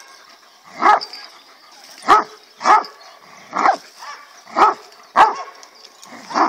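Dog barking in play while tugging a toy: about seven short, loud barks spaced half a second to a second apart.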